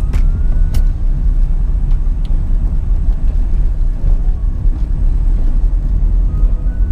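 Steady low rumble of a 1994 Honda Civic EG's four-cylinder engine and tyres, heard from inside the cabin while driving at low city speed, with a couple of short clicks in the first second.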